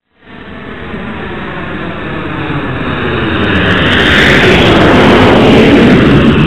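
Jet airliner engine noise, likely a sound effect of a plane passing over. It swells from nothing to a loud peak about five seconds in, with a slowly sweeping rushing tone.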